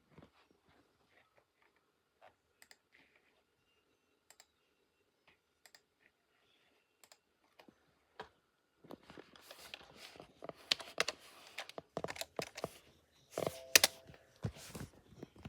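Hands handling a memory module (RAM stick) in a desktop PC: scattered light clicks and taps at first, then from about nine seconds a busy run of plastic clicking and rattling with a few sharper snaps.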